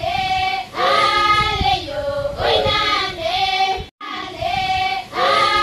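A group of children singing together, a short sung phrase that breaks off with a brief cut about four seconds in and then starts over.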